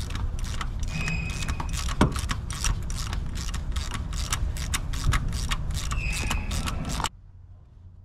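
Hand ratchet wrench clicking in quick, uneven strokes as it loosens the standpipe fitting at the rear of a diesel engine's high-pressure oil rail, stopping abruptly about seven seconds in.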